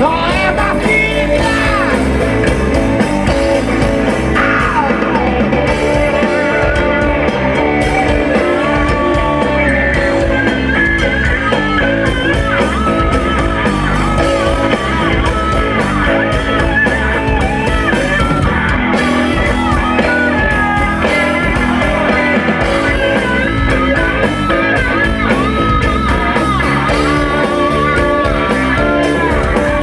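Rock band playing live, with a guitar carrying a wavering, bending melody over bass and drums.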